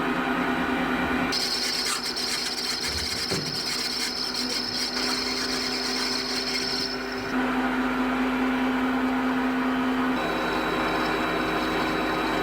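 Electric power tool running steadily and working material, with a rasping grind from about a second in to about seven seconds in; its pitch changes a few times.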